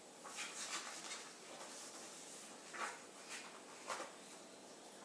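Quiet room with a few faint, short rustles or soft taps.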